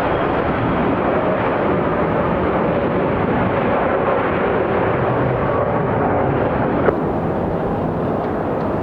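Steady jet airliner engine noise from a Boeing 767-400ER arriving on the runway. About seven seconds in, a sharp click marks a splice, after which the noise carries on with a slightly different sound.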